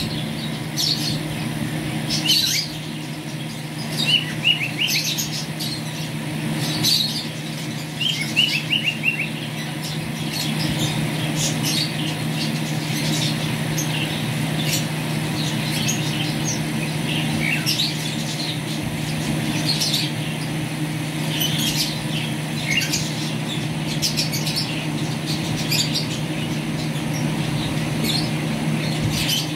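Caged strawberry finches chirping: scattered short, high chirps, with two quick runs of rapidly repeated notes about four and eight seconds in, over a steady low hum.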